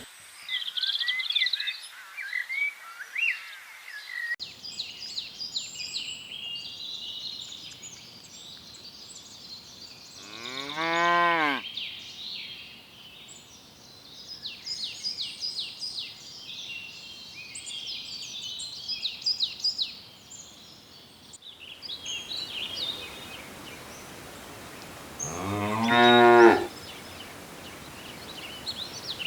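Cow mooing twice, each a single drawn-out moo of over a second, about fifteen seconds apart, with small birds chirping throughout.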